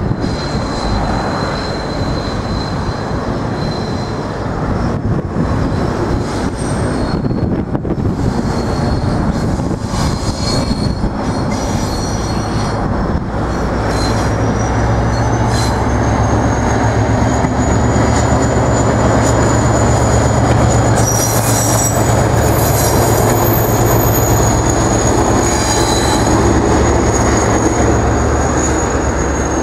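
Irish Rail class 071 diesel-electric locomotive running past under power: a steady two-stroke EMD diesel engine rumble that grows louder as it draws level, about halfway through. From about halfway on, a thin high steady wheel squeal from the curved junction track sits above it.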